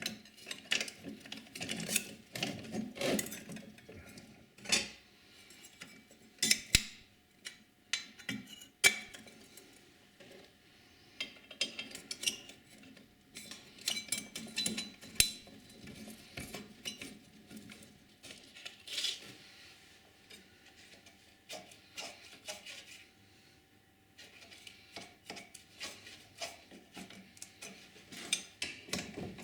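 Steel parts of a tram gear shifter being handled and fitted together by hand: irregular clinks, knocks and scrapes of metal on metal, with a quieter pause about three quarters of the way through.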